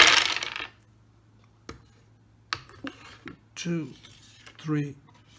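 A handful of eleven six-sided dice thrown into a wooden dice tray, clattering together and against the wood and settling within about a second. A few light clicks follow as the dice are picked up and moved by hand.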